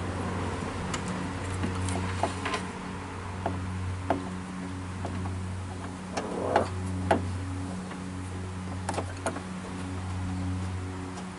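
Soft ambient background music of low held tones that shift every second or two, with scattered clicks and taps of hand tools and plastic parts. The loudest taps come a little past the middle.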